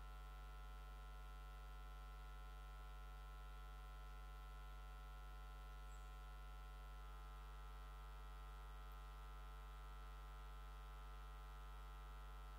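Faint, steady electrical mains hum with a buzzy edge, unchanging throughout, and no other sound.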